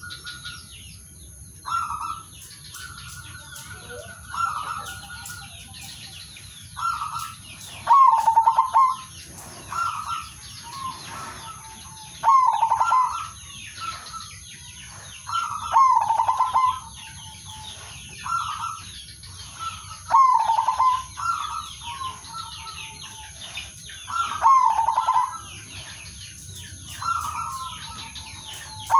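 Male zebra dove (perkutut) cooing: a rolling, trilled coo phrase repeated every few seconds, the loudest about every four seconds with softer coos between. It is the male's call to a rival. High chirps of other birds sound in the background.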